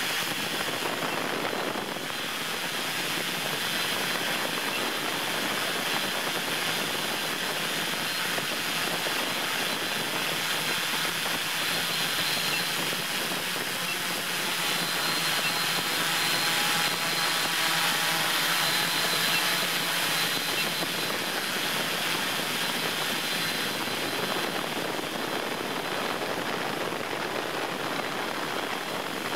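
Multirotor drone's motors and propellers running steadily in flight: an even whirring hiss with a faint high whine.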